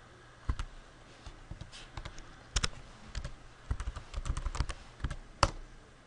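Typing on a computer keyboard: irregular runs of keystrokes with short pauses, and a single louder click near the end.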